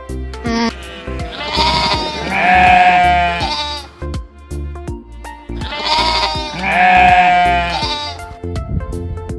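Goat bleating: two long wavering bleats about four seconds apart, over music with a steady low beat.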